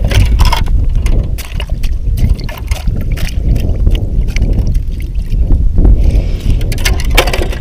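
A bare hand splashing and working through slush and ice chips in an ice-fishing hole, with irregular wet crackling and knocks, over a heavy low rumble of wind on the microphone.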